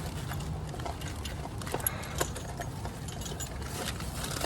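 Scattered light clicks and clinks of metal parts and tools being handled, over a low steady rumble.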